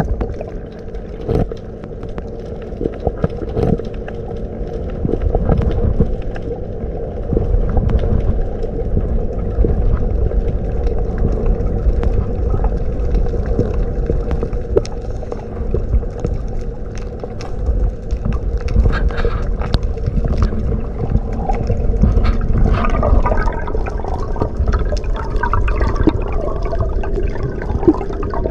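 Underwater sound heard through a submerged microphone: a continuous low rumble under a steady hum, with scattered clicks throughout. Bubbling, gurgling sounds grow busier in the last few seconds.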